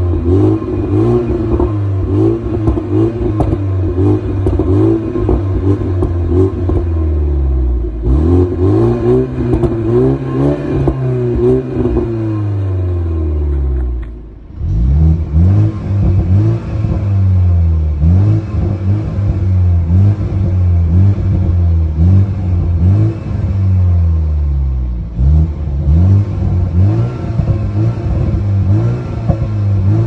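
BMW 330i G20's turbocharged four-cylinder engine revved again and again through its M-Sport exhaust, with sharp pops and crackles as each rev falls away. About halfway through, the sound cuts briefly. The engine then heard from inside the cabin climbs and falls in pitch over and over, about every two seconds.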